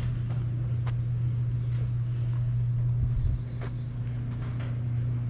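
A steady low hum runs throughout, with a thin, steady high-pitched insect drone above it, like crickets or cicadas. A few light ticks, likely footsteps on concrete, come through.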